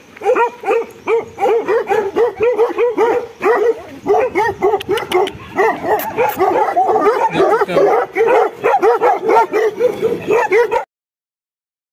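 Several Bhotia dogs and puppies barking and yipping together in quick, high, overlapping barks, about three a second. The sound cuts off suddenly near the end.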